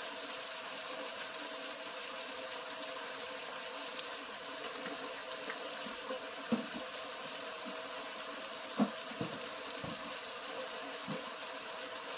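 Chicken pieces sizzling steadily in a frying pan. A pepper mill grinds over the pan in the first few seconds with fine clicking, and a few light knocks follow later, the sharpest about nine seconds in.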